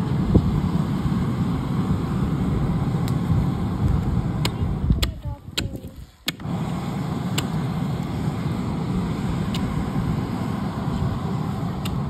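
Steady low rushing roar of a clay bloomery furnace under an air blast through its tuyere, with a few sharp cracks. The roar fades out briefly about five seconds in and comes back abruptly about a second later.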